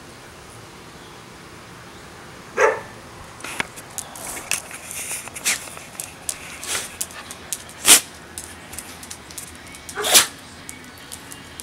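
Dog giving two short barks, one about two and a half seconds in and one near the end. Between them come light irregular clicks of claws on concrete as she walks about, with one sharp tap.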